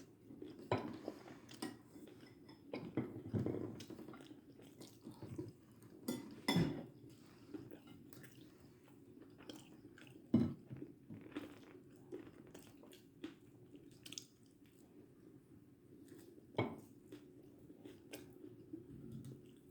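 Irregular crunching and clicking, with a few sharper knocks standing out.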